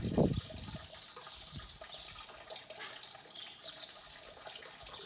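Thin stream of water falling from a fountain spout into a metal trough, a steady splashing trickle. A low thump or two at the very start.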